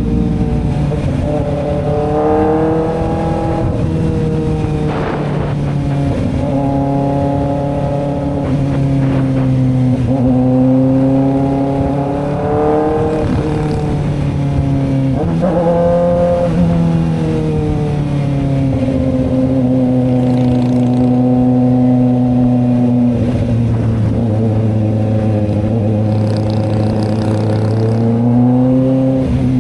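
Kawasaki Ninja ZX-4RR's inline-four engine running through an SC Project exhaust while riding. The revs rise and fall several times in the first half, hold steady for several seconds, then rise again near the end.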